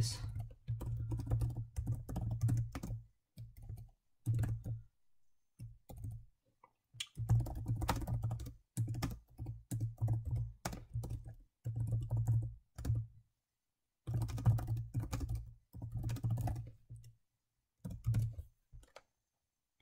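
Typing on a computer keyboard in runs of rapid keystrokes, broken by short pauses of a second or two.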